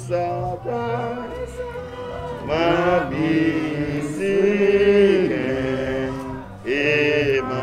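Several voices singing a slow hymn with long held notes, with a short break near the end before the singing picks up again.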